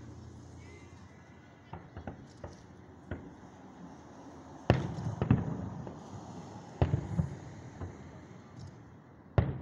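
Aerial firework shells bursting: a few lighter pops, then louder booms about halfway through and again near the end, each trailing off in an echo.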